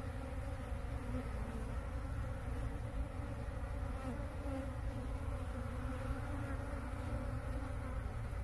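Many honeybees buzzing in a steady, unbroken hum as they feed at a sugar-syrup feeder, over a low rumble.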